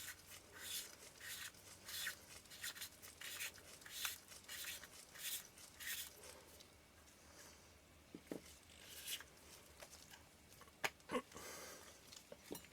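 Faint scratchy rubbing as a lens part is screwed by hand into the metal lens barrel, a few short strokes a second for about six seconds, followed by a few light clicks.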